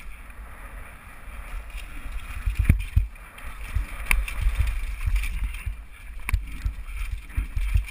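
Downhill mountain bike rattling over a rough rocky trail and a wooden ladder bridge, with wind rumbling on the helmet-mounted microphone. Several sharp knocks from the bike hitting bumps stand out, one near the middle and a few more after it.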